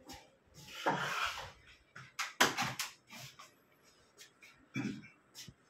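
A series of sharp clicks and knocks in a small room, the loudest a cluster around two and a half seconds in, after a short rustle about a second in.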